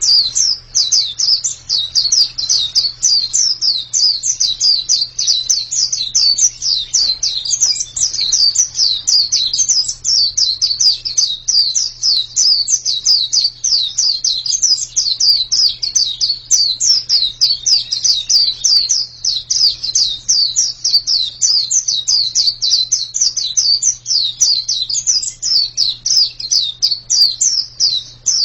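Pleci (white-eye) singing a long, unbroken stream of quick, high twittering notes, many each second without a pause.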